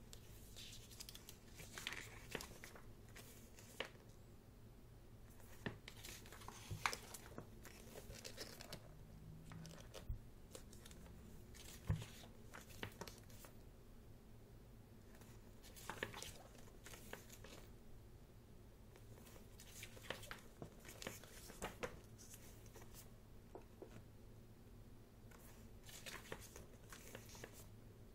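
Pages of a thick photobook being turned one after another, with repeated soft paper swishes and rustles and a few light taps.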